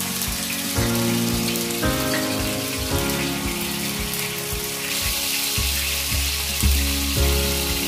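Thin slices of marinated beef sizzling in hot oil in a grill pan as more slices are laid in, the sizzle growing a little louder about five seconds in. Acoustic folk background music plays along.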